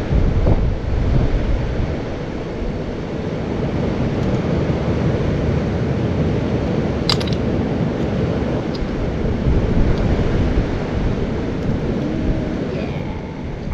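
Wind buffeting the microphone: a steady low rumble, with one sharp click about seven seconds in.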